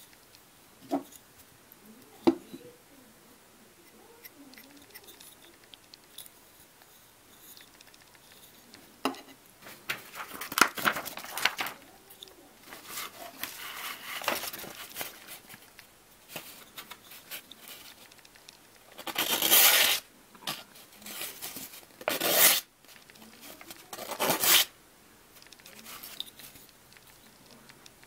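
Ceramic blade of a small folding knife slicing through paper: a run of cuts about a third of the way in, then three short strokes in the second half, the first of these the longest and loudest. Two light clicks near the start from handling the knife.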